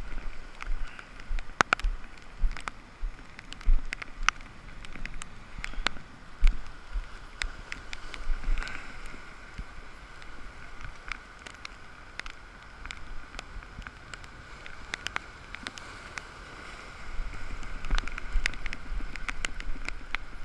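Surf breaking and washing around shoreline boulders, with wind buffeting the microphone in low thumps and scattered sharp clicks and taps.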